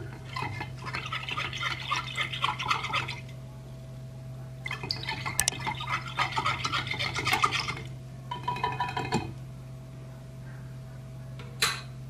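Silicone whisk stirring hot chocolate mixture in a saucepan: rapid swishing and scraping against the pan in three spells, over a steady low hum. A single click comes near the end.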